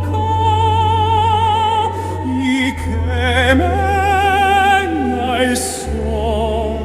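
Music with a singer holding long, wavering notes in an operatic style over a steady low accompaniment.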